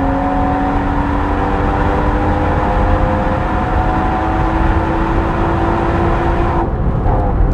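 Tuned BMW M140i's turbocharged 3.0-litre straight-six under hard acceleration, its note climbing slowly and steadily through a long pull in gear. Near the end the throttle is lifted and the sound drops away suddenly.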